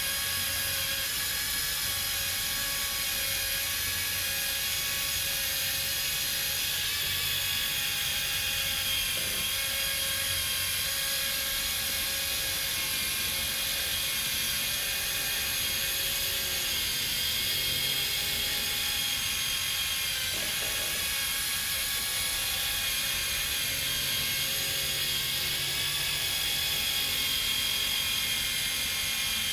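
Cordless mini rotary polisher running with a steady high whine, its small pad working cutting polish into the paint along the edge of a window moulding.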